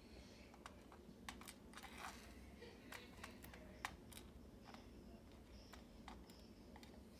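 Faint, irregular light clicks and taps of small lock pins being picked up and set down while they are sorted on a work surface.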